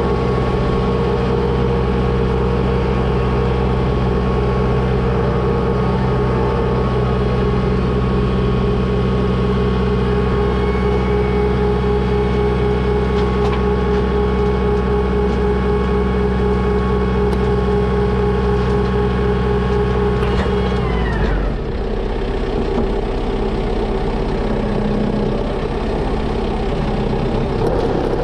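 Tractor engine running steadily at high revs, then throttled down about 20 seconds in, its pitch falling, and running rougher and lower after that.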